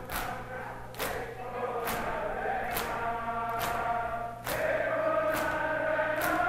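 Men chanting a nauha in unison while beating their chests in matam, the hand strikes landing together at a steady beat of a little under one a second. The chanting swells louder about halfway through.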